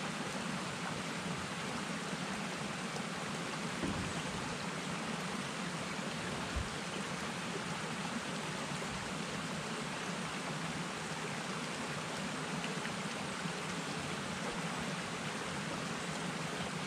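Steady rain falling on the forest, an even hiss with no let-up. Two faint knocks from poles being handled sound about four and six and a half seconds in.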